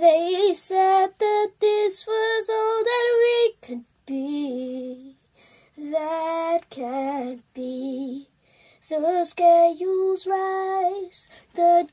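A young girl singing solo and unaccompanied, holding long notes with a slight waver, in phrase after phrase with short silent breaks between.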